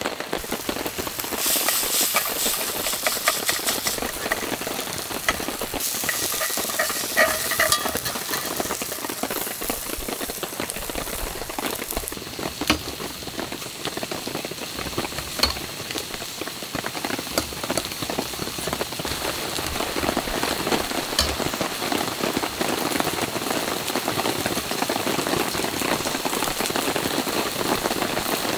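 Steady hiss and patter of rain on a camping tarp, mixed with a steak sizzling in a Lodge cast-iron pan on the burner. A few sharp clicks come from a knife on a steel plate.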